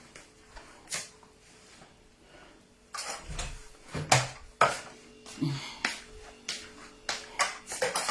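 Irregular knocks and clatters of hard objects being handled and set down: a couple near the start, then a denser run of about ten from around three seconds in.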